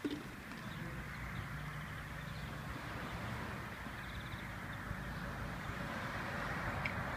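Steady outdoor background noise with a constant low hum, and one short knock at the very start.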